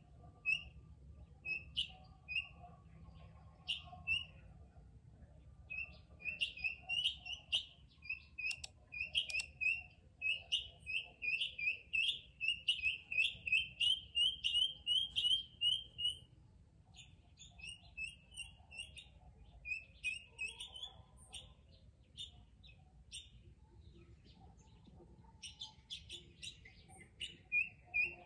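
Guineafowl calling: a long run of short, sharp notes repeated about three times a second. The run is strongest in the middle, then fades, and a shorter run comes near the end.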